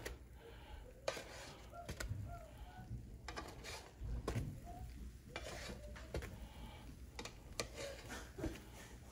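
Plastic spatula sliding under pancakes and flipping them on an electric griddle: quiet scrapes and light taps scattered throughout.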